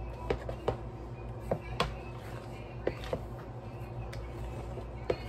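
A long white spatula stirring and folding a thick pudding and whipped-cream mixture in a large bowl, with irregular light knocks of the spatula against the bowl about every half second to a second, over a steady low hum.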